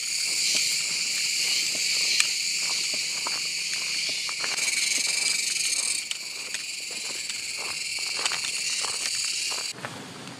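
Dense insect chorus, a steady high-pitched buzzing, with scattered small clicks and knocks. About a second before the end the chorus cuts off suddenly and the clicks come more often.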